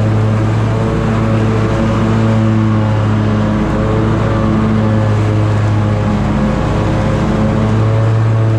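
Scag Tiger Cat zero-turn mower's engine running steadily with the cutting deck's blades engaged, mowing grass.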